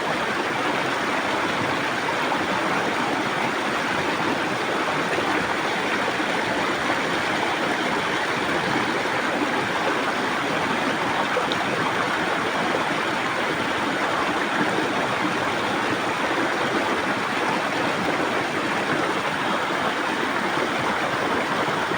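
River water flowing and rushing steadily, an even unbroken sound of running water.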